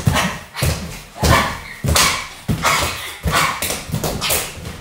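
Exercise balls (gym balls) bouncing on the floor as two riders hop along on them: a quick, uneven run of heavy thumps, about two to three a second.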